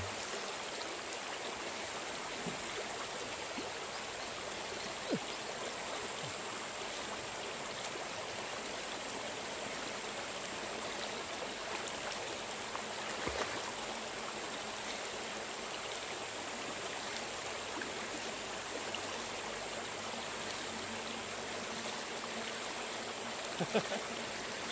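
Steady rush and splash of river water around a floating gold-prospecting sluice box, with a few brief knocks or splashes now and then and a couple more near the end.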